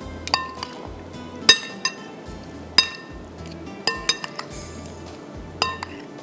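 A spoon clinking against a bowl while a fish marinade is mixed: irregular sharp clinks, each with a short ring, about every second. Background music runs underneath.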